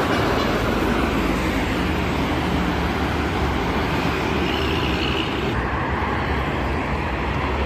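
Fast highway traffic going by close, buses among it: a steady rush of tyre and engine noise from vehicles passing at speed.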